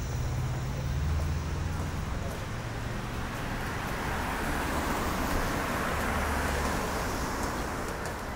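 Road traffic: cars driving past with a steady low engine rumble, and tyre noise swelling as a car passes about halfway through.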